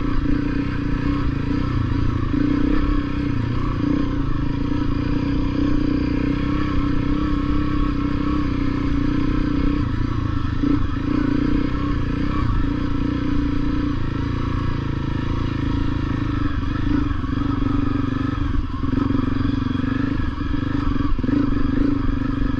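Honda CRF250L single-cylinder four-stroke dirt-bike engine running steadily under way on a rough trail, its note dipping and picking up a little now and then.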